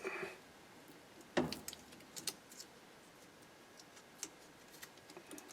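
A few light clicks and taps of small metal parts being handled, the loudest about a second and a half in.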